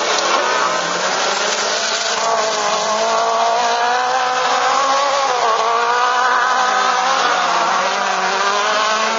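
Autocross special-class buggies (Spezialcross cars) racing on a dirt track, their high-powered engines revving hard. The engine pitch rises and falls as the drivers work the throttle through the corners, dropping sharply about five and a half seconds in and then climbing again.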